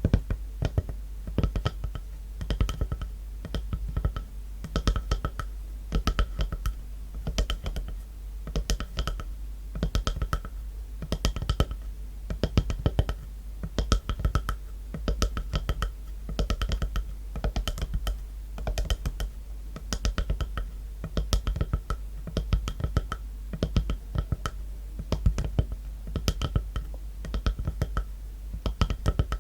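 Fingers tapping on a wooden log in quick, irregular taps, several a second, each tap ringing briefly with a pitched tone.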